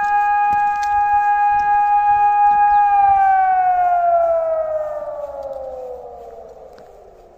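Hörmann ECN 600 electromechanical motor siren sounding a loud, steady tone at full speed. About three seconds in it winds down, its pitch sliding lower and its volume fading as the rotor coasts to a stop.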